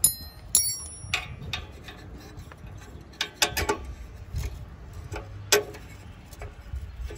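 Metal parts and hand tools clinking and clicking while the mower deck's pulley is refitted: two sharp ringing metallic clinks at the start, then scattered short clicks and knocks.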